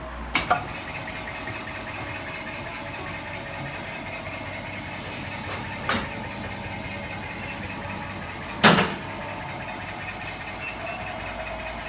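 A steady mechanical hum from running workshop machinery, broken by three sharp knocks, the loudest near the end.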